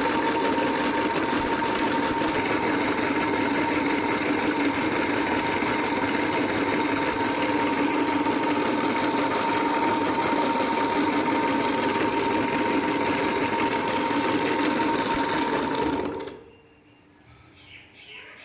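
Electric meat grinder running steadily with a constant whine, cutting off suddenly near the end.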